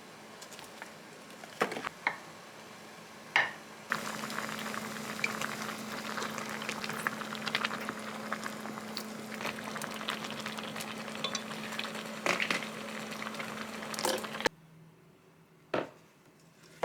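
Food bubbling and crackling in a pan on a stove, over a steady low hum. It starts about four seconds in, after a few sharp knocks, and cuts off abruptly near the end.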